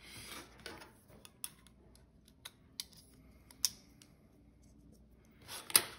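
Hand reassembly of an Emerson CQC8 folding knife: soft handling rustle, then a few scattered sharp small clicks as the metal parts and handle scale are fitted back together, the loudest click near the end.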